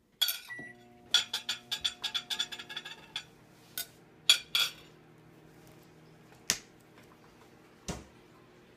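Knife and fork clinking and scraping on a ceramic plate in a quick run of clicks, then a few single sharp clicks and knocks as a plastic bottle is handled over the plate. Under it a microwave oven beeps and starts running near the start, a steady hum that carries on.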